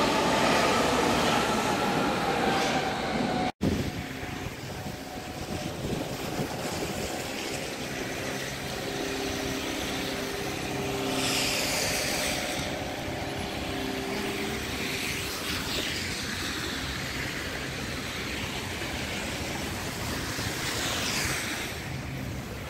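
A subway train moving through an underground station, its motors whining with shifting pitch. After an abrupt cut about three and a half seconds in comes steady street traffic: engines running, with cars swishing past twice on slushy roads.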